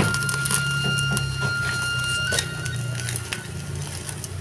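Background music: a simple melody holding one high note for about two seconds, then moving to another, over a steady low hum. Irregular crackles and pops from the wood fire sound beneath it.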